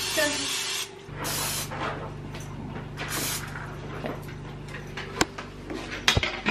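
Aerosol cooking spray hissing in three short bursts as a small non-stick pancake pan is greased, followed by a couple of sharp knocks near the end.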